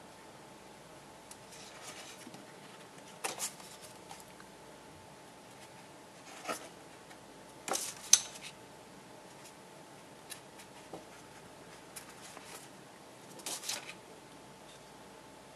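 Glossy photo prints and the card portfolio they sit in being handled: a few short rustles, slides and taps of paper and card, the sharpest about eight seconds in.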